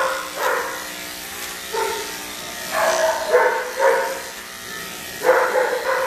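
A dog barks repeatedly in short clusters over the steady hum of electric dog clippers, which are shaving through a wet, matted coat.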